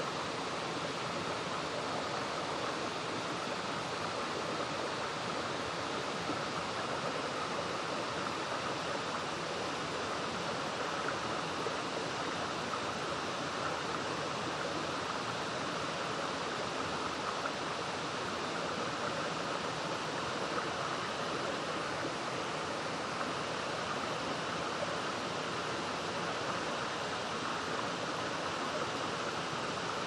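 Forest waterfall running: a steady, even rush of falling water.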